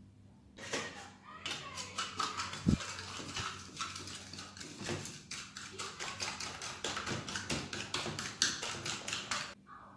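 A fork beating egg and sugar in a glass bowl: rapid, steady clinks and scrapes of the metal against the glass, with one louder knock a few seconds in. It starts about half a second in and stops shortly before the end.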